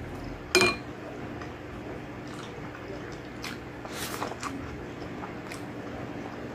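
Wet eating sounds: mouthfuls of gelatinous spicy balbacua and rice eaten by hand, with soft smacking and chewing clicks, a small cluster about four seconds in. About half a second in, one sharp, loud clink with a brief ring as a spoon is set down in the glass sauce bowl.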